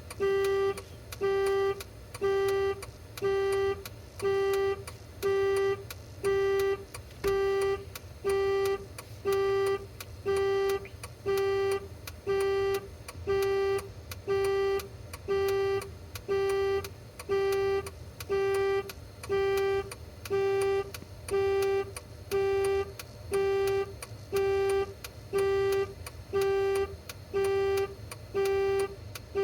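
A 2011 Jeep Wrangler's dashboard warning chime sounds over and over, an even pitched ding a little more than once a second, over a steady low hum.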